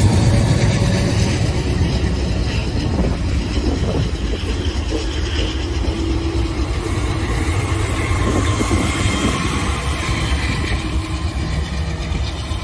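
Diesel-electric locomotives passing close by on the track: a steady low engine rumble with wheel noise on the rails, easing off as the last unit goes by.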